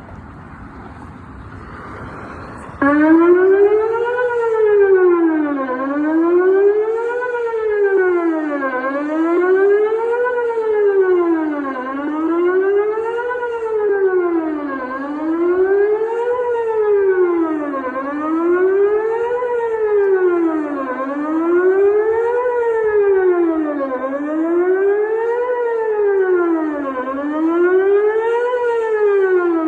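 Outdoor emergency warning siren sounding a wail during a system test, its pitch sweeping smoothly up and down about once every two and a half seconds. It cuts in suddenly at full loudness about three seconds in, over faint background noise.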